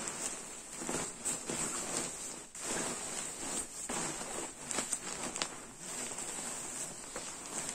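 Rustling of a goose-down sleeping bag's treated nylon shell as hands fold, squeeze and roll it. The rustle comes and goes unevenly with the handling.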